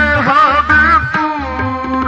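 Sikh kirtan: a male singer with harmonium and tabla. A wavering, ornamented vocal line gives way to steadier held notes after about half a second, over steady tabla strokes.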